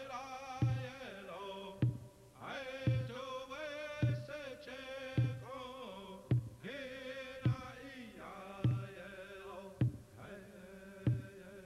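Music: chanted singing with a wavering pitch over a steady drum beat, about one stroke a second.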